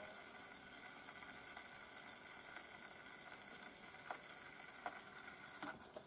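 Faint steady hiss and light crackle, with a few soft clicks in the second half: surface noise of a shellac 78 record under the needle of a homemade gramophone with a large paper horn.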